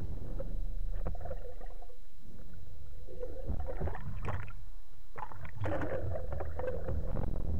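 Muffled water sloshing and splashing around a speargun-mounted camera housing at the sea surface, over a steady low rumble, with irregular splashes as the housing dips in and out of the water.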